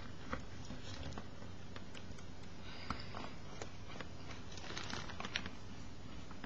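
Faint light clicks and small scrapes of a metal tool and fingers working on a plastic Canon T90 camera body during reassembly, scattered irregularly with small clusters about three seconds in and near five seconds, over a faint steady hum.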